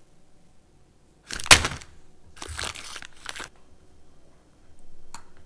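Plastic wrapper of a Pepero snack bag crinkling in three short bursts, the first the loudest, followed by a sharp click near the end.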